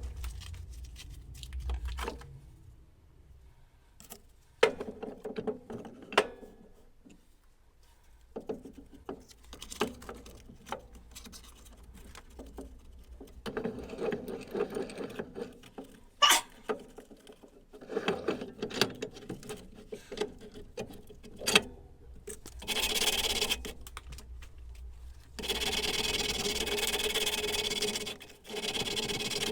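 Hand tool work on a hammer in a workshop: scattered taps and clicks with rubbing in between, then two stretches of steady scraping near the end, the second lasting about four seconds.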